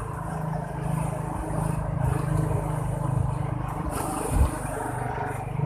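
A motor engine running steadily with a low, evenly pulsing rumble, with a brief low thump about four and a half seconds in.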